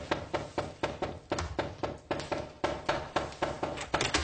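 Rapid, insistent knocking on a door, about five sharp knocks a second and unbroken.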